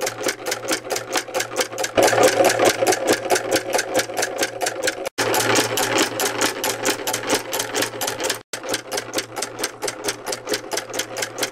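Homemade reciprocating solenoid engine running: its armature shuttle slams from end to end, switching the latching relay each stroke, in a fast even clatter of about seven strokes a second. It cuts off suddenly at the very end when the power is switched off.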